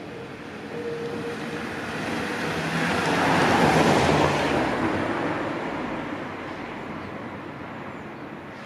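A vehicle passing by: a rushing noise that swells to its loudest about four seconds in and then slowly fades away.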